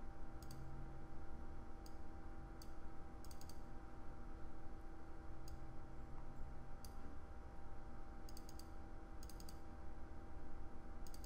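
Computer mouse clicking: a scattering of single clicks and quick double-clicks over a faint steady electrical hum.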